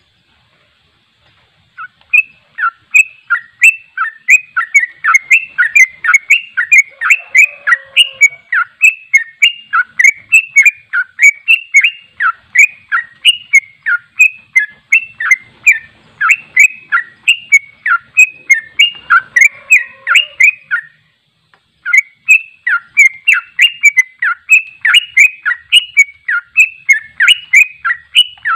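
Yellow-vented bulbul (trucukan) singing its rapid 'ropel' song: a fast, unbroken run of short chirping notes, several a second. It starts about two seconds in and breaks off briefly about three quarters of the way through before running on.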